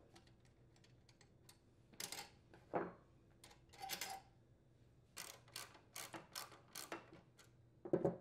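Light metallic clicks and taps from a socket wrench working the nuts and bolts that hold a tiller's handle assembly, with a run of evenly spaced clicks, about three a second, a little after halfway and a louder click near the end.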